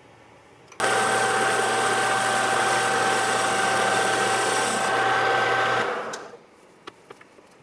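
Chinese mill-lathe combination machine running with its chuck spinning, a steady machine sound with a whine. It starts suddenly about a second in, then is switched off about five seconds later and winds down.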